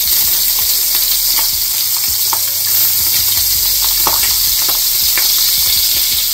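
Whiting fillets searing in melted butter in a frying pan: a steady sizzle with scattered small pops and crackles.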